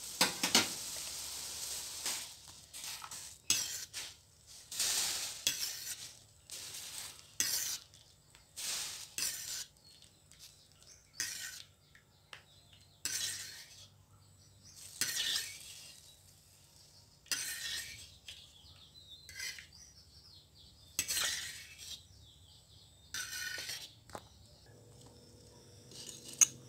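Instant noodles bubbling in a wok for the first couple of seconds, then a string of short scrapes and clinks of kitchen utensils against the wok and a plastic strainer bowl, one every second or two, as the noodles are lifted out.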